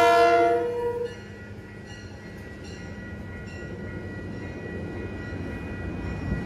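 A train horn chord cuts off within the first second. Then the passenger cars of a Metro-North push-pull train rumble steadily through the grade crossing, with the crossing bell ringing faintly. The rumble grows louder near the end as the diesel locomotive at the rear approaches.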